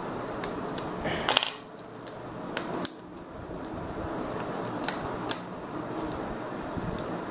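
Small sharp clicks and taps of steel tweezers and fingers on a smartphone's plastic frame and parts as it is taken apart, about seven of them scattered through, the loudest a short rattle a little over a second in. Steady background noise underneath.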